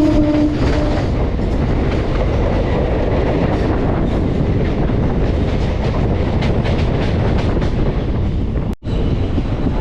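Express passenger train running at speed, heard from on board: a steady rumble of wheels on rail with faint clicks over the rail joints. The locomotive's horn trails off in the first second, and the sound cuts out briefly near the end.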